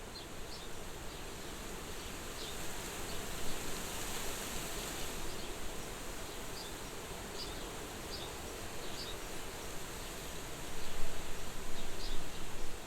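Soft wind blowing at a farmhouse window, a steady hiss, with scattered short high chirps from small birds or insects and a louder, uneven gusty stretch near the end.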